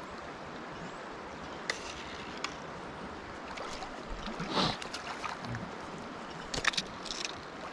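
Steady rush of river current flowing around a wading angler. A few short splashes come about four and a half seconds in and again near the end, as a hooked trout is brought to a landing net.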